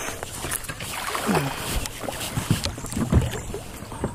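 Water splashing and knocking against a kayak as a hooked bass is fought to the boat and swung aboard.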